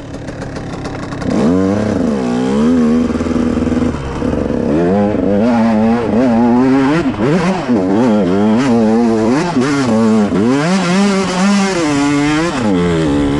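Dirt bike engine revving up and down over and over as the rider works the throttle climbing a steep slope, the pitch rising and falling roughly once a second. It is quieter at first, then loud from about a second in.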